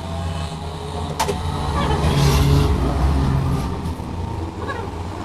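Rebuilt six-cylinder diesel truck engine running with a steady low drone, rising in level for about a second around two seconds in before settling back.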